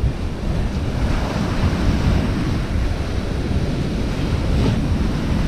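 Surf breaking and washing up a shingle beach, with strong wind buffeting the microphone in a steady low rumble.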